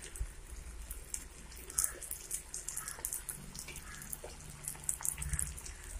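Stuffed-brinjal curry simmering in a pan, the thick gravy bubbling with small irregular pops and sputters over a faint low hum.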